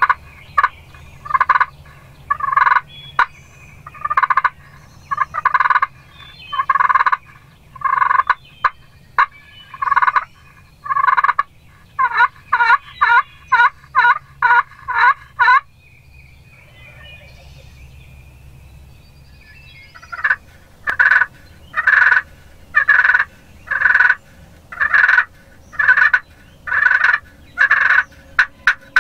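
Turkey yelping: a long series of short, loud notes, about one a second, that come faster around the middle, stop for about four seconds and then start again.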